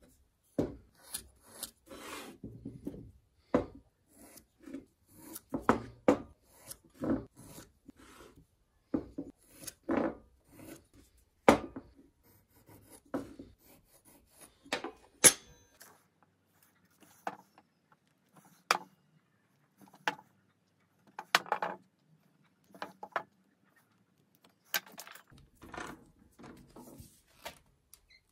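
Carpenter's pencil scratching lines onto wooden blocks along a steel square, with short scrapes and knocks as the square and the blocks are moved and set down on a metal table-saw top. The sounds come one at a time with quiet gaps between them.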